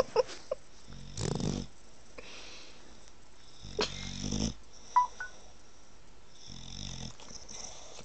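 English bulldog breathing noisily through its short muzzle, three wheezy, snorting breaths a few seconds apart, with a few faint clicks between them.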